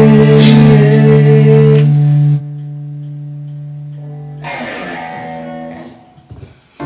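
Band music ending with guitar: a loud sustained final chord cuts off sharply about two seconds in, leaving a quieter held note. About four and a half seconds in a last strummed guitar chord rings out and fades away near the end.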